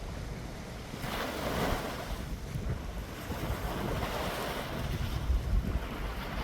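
Wind buffeting the microphone over sea waves washing on the shore, the noise swelling and easing every few seconds.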